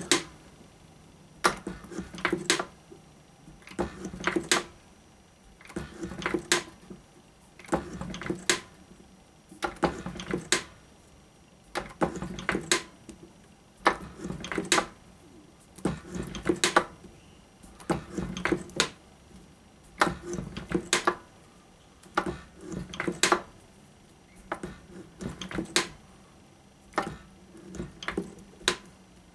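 Hand-powered Drummond Bros shaper taking steady cuts on a small metal tee slot clamp, about one stroke every two seconds. Each stroke brings a sharp click and a brief scrape of the tool across the work.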